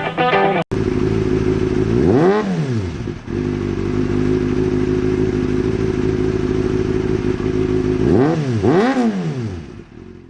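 Engine idling steadily, blipped three times: one quick rev about two seconds in and two more near the end, each pitch rising and falling back, before it fades out.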